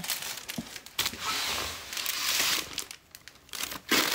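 Crinkling and rustling of paper slips and clear plastic bags being handled. There are two spells of it: one starting about a second in, and a louder one beginning near the end.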